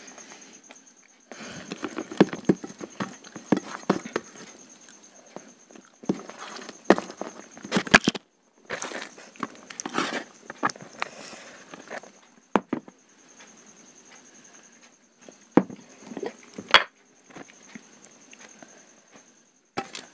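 Close-miked eating: wet chewing and lip-smacking clicks, mixed with fingers squishing rice and curry against a steel plate. The sounds come in irregular clusters with short pauses between them.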